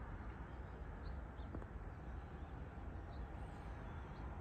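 Rural morning ambience: scattered short, high bird chirps, with one higher call sliding downward about three and a half seconds in, over a steady low rumble.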